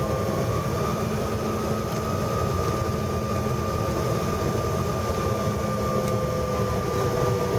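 Airliner cabin noise while taxiing: a steady rumble from the jet engines and air system, with two steady whining tones over it.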